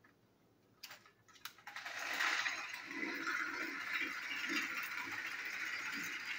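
Battery-powered toy train engines running along plastic track: a steady whir and rattle from their small motors and gears, beginning about two seconds in after a few light clicks.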